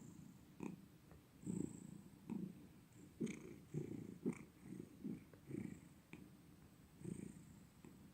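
Domestic cat purring, swelling and fading in low pulses about once a second as it breathes in and out.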